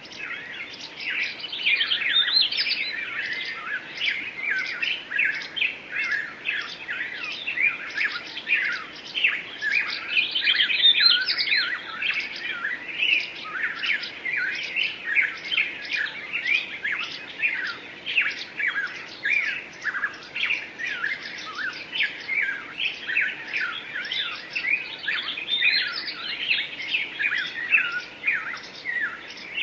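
Birds chirping and singing in a dense, continuous chorus of short, rapid, overlapping notes.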